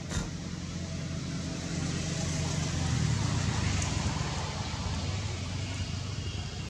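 A motor vehicle engine running steadily: an even low hum with a hiss over it, swelling a little midway. A short click comes right at the start.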